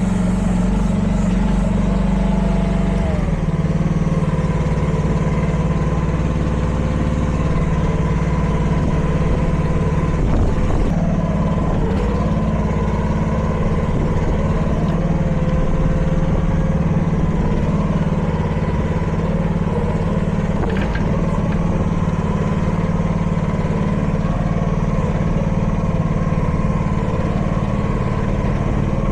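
Chinese mini excavator's small engine running steadily, with a thin whine that shifts in pitch now and then as the machine is worked.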